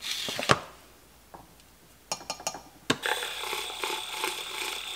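A few light taps and clicks, then a battery-powered handheld milk frother running steadily in a glass of greens powder drink from about three seconds in.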